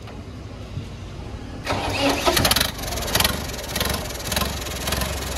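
Tractor diesel engine, just fitted with a turbocharger and with no silencer on the exhaust yet, starting up about a second and a half in with a sudden burst of firing knocks, then settling into a steady run.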